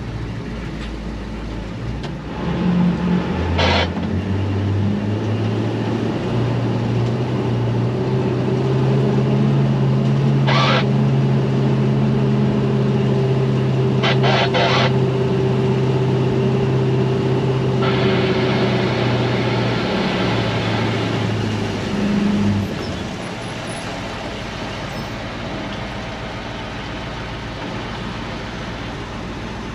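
Heavy diesel engine revving up a couple of seconds in and held at steady high revs for about fifteen seconds, then dropping back to a low run about three-quarters of the way through. A few sharp clicks and a brief hiss sound over it.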